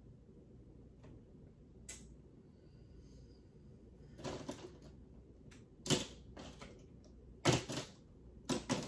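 Small makeup items clattering and clicking against one another and a plastic storage drawer as a hand rummages through it. It comes as a series of short, uneven rattles, the loudest about six and seven and a half seconds in.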